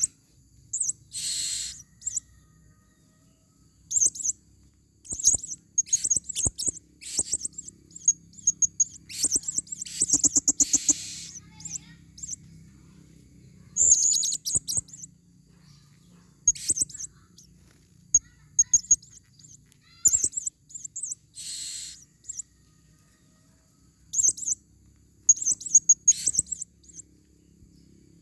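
Female blue-crowned hanging parrots (serindit) calling: series of short, very high, thin chirps, broken by a few longer raspy shrieks, about a second in, around the middle and again two-thirds of the way through.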